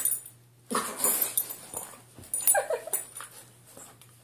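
Small dog whimpering: a few short, high whines that slide down in pitch around the middle.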